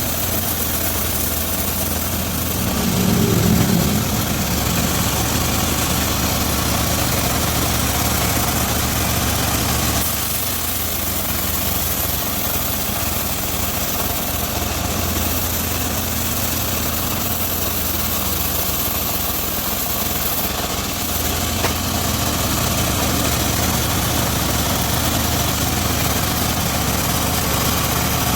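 Engine driving a homemade circular sawmill running steadily, with a brief louder swell about three seconds in.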